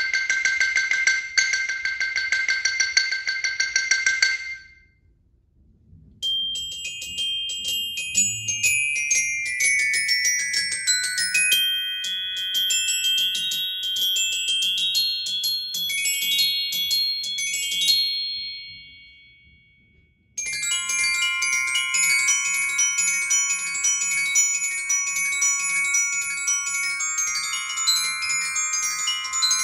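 Solo xylophone played with mallets, a quick passage that stops about four seconds in. After a short gap, a solo glockenspiel plays a rapid run of bright ringing notes that dies away about two-thirds through, then starts again with another fast, busy passage.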